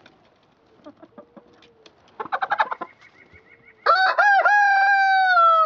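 Rooster crowing: one long drawn-out call starting about four seconds in, its pitch slowly sagging toward the end. A few short hen clucks come before it.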